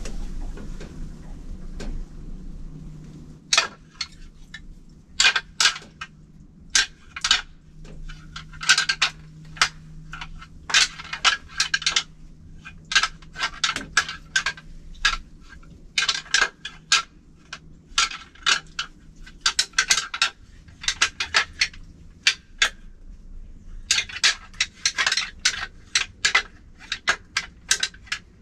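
Irregular bursts of sharp, hard clicks and clacks, hard objects knocking together in clusters of a second or two with short pauses between.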